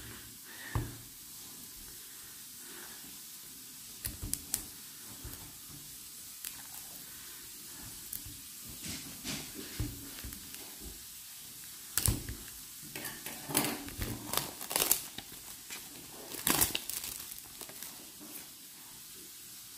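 Plastic shrink-wrap on a small card box being cut with scissors and peeled off, crinkling and crackling in scattered short bursts that come thicker in the second half.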